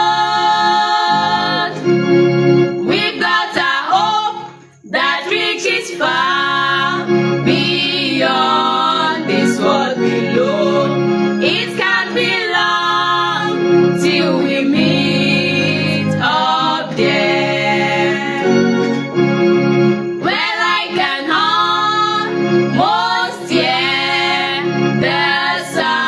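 Gospel song: singing over a sustained organ accompaniment, with a brief break about five seconds in.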